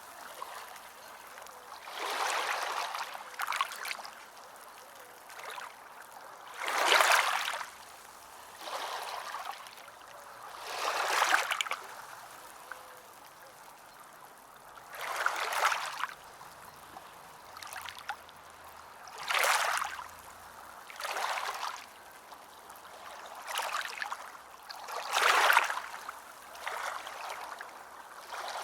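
Water washing and splashing in repeated surges, one every two to four seconds, over a softer steady rush of running water between them.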